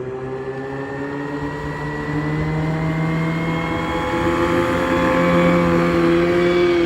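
A small boat's motor running at speed, growing steadily louder as it approaches, its engine note rising slowly in pitch.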